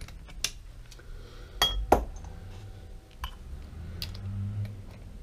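Light metallic clinks and taps of small tools or parts being handled, about five in all, the loudest two close together near two seconds in, over a steady low hum.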